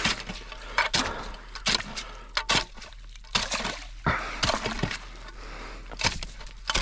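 An ice chisel striking and chipping at ice around a hole in a frozen pond, about a dozen sharp, irregular strikes with breaking, crunching ice and some slushy water.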